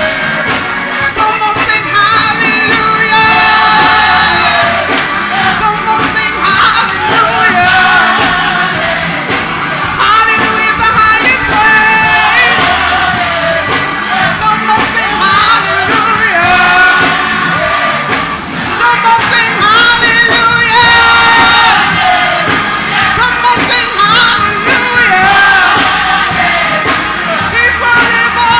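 Live gospel music in a church: lead vocals sung through a microphone over band accompaniment with drums and cymbals, continuing without a break.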